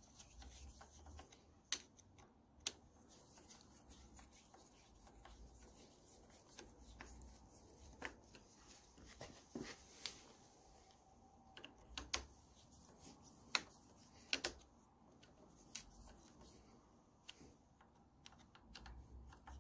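Faint, irregular clicks and scrapes of a screwdriver turning the clamp screws on the 1972 Honda CL70's twist-throttle housing, with hands handling the metal housing on the handlebar.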